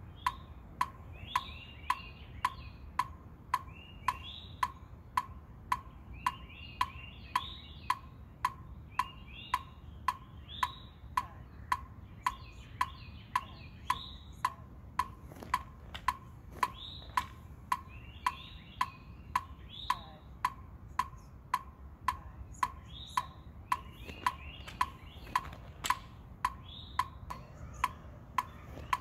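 Electronic metronome clicking steadily at about two beats a second, with birds singing in the background.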